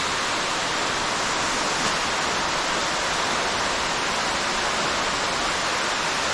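Steady rushing of water falling inside a cave, even and unchanging throughout.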